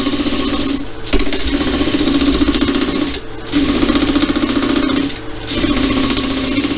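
Wood lathe spinning a turned wooden ring while it is sanded by hand: a steady rasping over the motor's hum, dropping out briefly about every two seconds as the pressure comes off.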